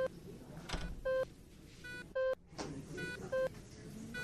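Electronic beep of a hospital patient monitor, sounding four times at an even pace of about once a second over low background noise.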